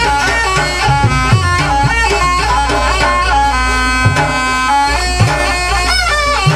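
Traditional barong accompaniment: a reedy shawm, the slompret, plays a melody of held and stepping notes over scattered drum strokes.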